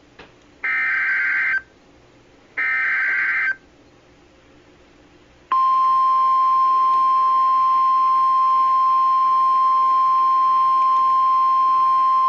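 Emergency Alert System SAME header on NOAA Weather Radio: two roughly one-second bursts of warbling digital data tones, about a second apart. After about two seconds of quiet, the steady 1050 Hz weather radio warning alarm tone starts about five and a half seconds in and holds, signalling a new warning about to be read.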